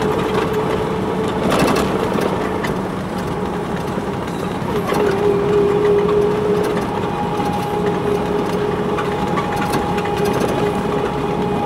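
Car driving along a lane: a steady mix of engine and tyre noise heard from inside the cabin, with a steady hum running through it.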